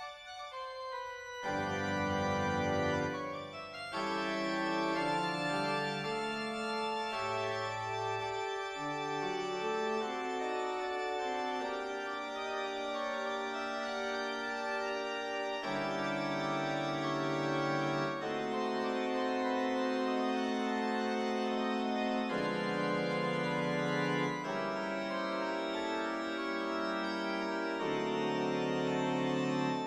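Organ music accompanying a silent film, playing slow held chords that change every few seconds.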